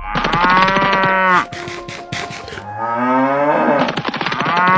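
Cow mooing sound effect: a long moo at the start and a second, rising moo later on, with a few short scratchy noises between them.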